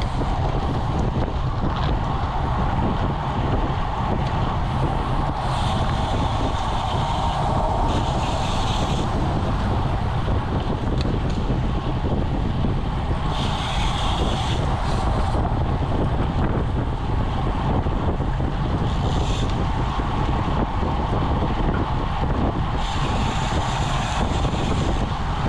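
Wind rushing over a bicycle-mounted camera's microphone while riding at around 20 mph, a steady, loud rumble. A higher hiss swells and fades several times.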